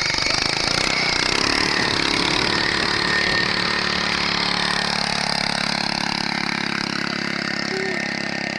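Honda GX340 11 HP single-cylinder four-stroke engine running steadily, growing slightly quieter in the second half.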